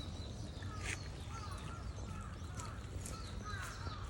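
Suikinkutsu: water drops falling into the buried jar, each giving a short ringing plink. The plinks come irregularly, several a second, over a steady background wash.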